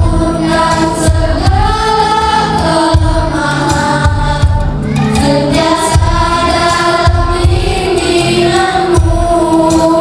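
A group of schoolboys singing a song together through a microphone, with instrumental backing and a low beat underneath.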